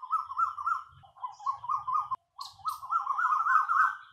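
A bird singing: three runs of fast, repeated rising-and-falling notes, broken briefly twice.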